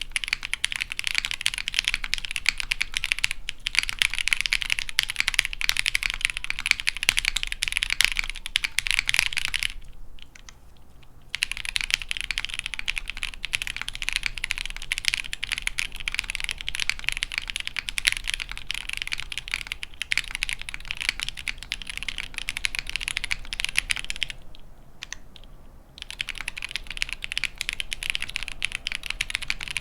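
Typing on a Matrix Falcon mechanical keyboard with lubed and filmed SP Star Meteor V3 switches with Cherry top housings, GMK Thinkcaps keycaps and a POM half plate. It opens with fast typing, breaks off about ten seconds in, resumes at a normal pace, breaks off again, and goes on more slowly near the end.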